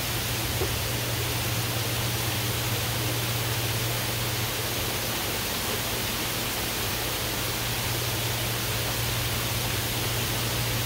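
Heavy rain falling steadily on leafy trees: a dense, even hiss. A steady low hum runs beneath it.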